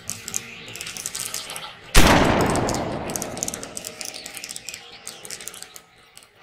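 A single loud gunshot-like bang about two seconds in, ringing out in a long echoing tail that fades over about four seconds, over light crackling clicks.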